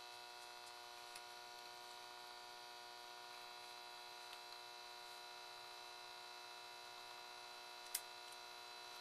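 Steady, faint electrical hum made of several fixed tones, with one brief sharp click about eight seconds in.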